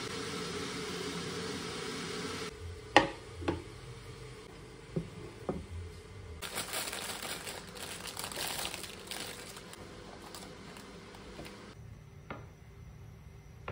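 Kitchen handling sounds: a few sharp clinks of crockery about three seconds in, then several seconds of plastic crinkling as the cling-film-wrapped roast chicken is handled.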